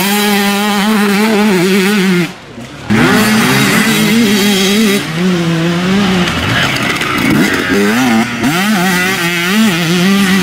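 Enduro dirt-bike engines revving up and down as riders race past on a dirt track. There is a brief break about two seconds in.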